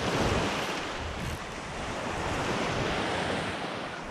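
Ocean surf breaking and washing up a sandy beach, swelling loudest near the start, with wind on the microphone.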